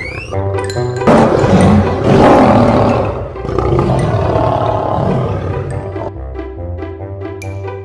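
A male lion roaring, loudest from about one to three seconds in, then trailing off over a few more seconds. Background music plays underneath throughout, and plucked string notes are left near the end.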